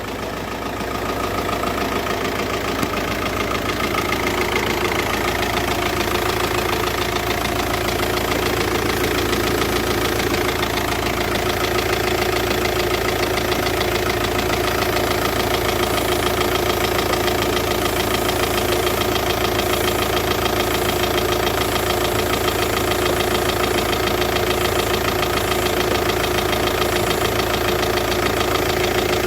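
Volkswagen Touran 2.0 TDI four-cylinder diesel idling steadily, with the hiss of a vacuum leak where the hose meets the vacuum pump check valve. The leak bleeds off brake-servo vacuum, so the car does not brake well.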